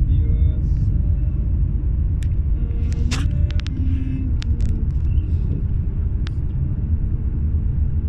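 Steady low rumble of a car driving, heard from inside the cabin, with a few light clicks over it.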